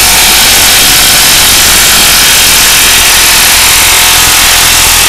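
Craftsman 19.2-volt cordless impact wrench hammering steadily without a pause on the 24 mm rear axle nut of a Suzuki DRZ400SM, breaking the nut loose. Its battery is running a little low.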